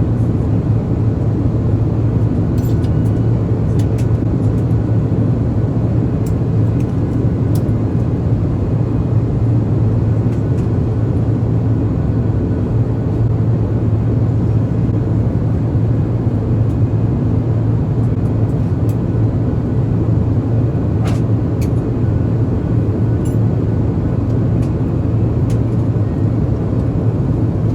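Steady cabin noise of an Airbus A350 in flight: an even rush of engine and airflow with a strong low hum, and a few faint clicks.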